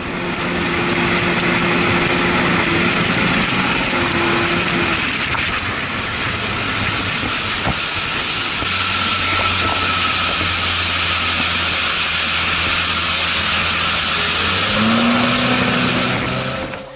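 Outboard motor of a small open river boat running at speed, under a loud steady rush of wind and hissing spray off the hull. The engine note rises briefly near the end.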